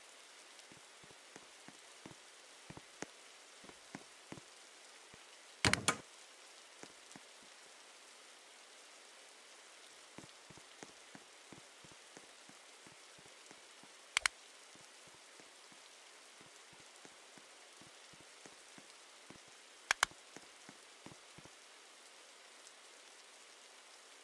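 Rain pattering: a steady hiss with scattered small drop ticks. Three louder sharp clicks, each a quick double, stand out several seconds apart.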